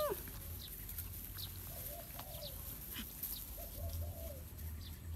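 Birds calling: a short, low cooing call of a few notes about two seconds in and again about four seconds in, with faint short high chirps in between.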